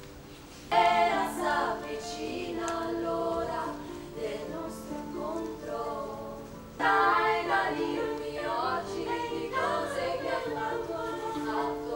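A small vocal group singing a cappella in harmony over held notes, the voices coming in strongly about a second in and again about seven seconds in.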